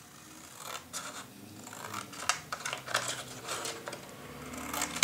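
Scissors cutting through black cardstock: a run of short, crisp snips that starts about a second in and continues.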